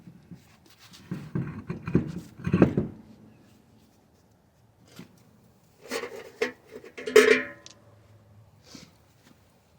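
Knocks and clatter of tools and car parts being handled, in two bursts: one about a second in and another around six seconds in.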